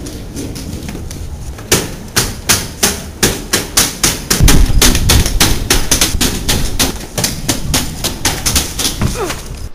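Wheeled rolling bag pulled down concrete stairs, its wheels knocking on each step in a steady run of about three knocks a second.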